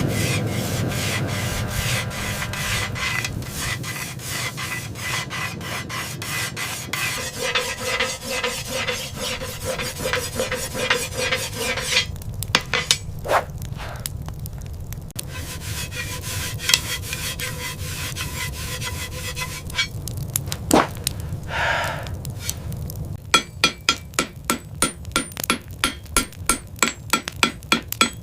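Rapid, repeated rubbing and scraping strokes of a hand tool on a workpiece, like filing or rasping. The strokes thin out midway to a few separate clicks, and a quick run of sharp taps follows near the end.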